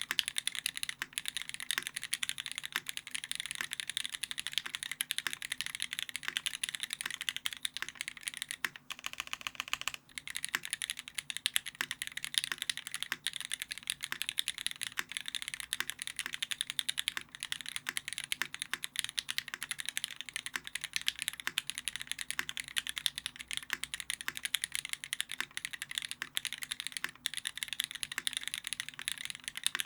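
Continuous fast typing on a Keycult No.2 rev.1 custom mechanical keyboard with lubed and filmed vintage black Cherry G80-1000HAD linear switches on a brass plate under GMK keycaps. The keystrokes run as a dense stream of clicks, with a brief pause about ten seconds in.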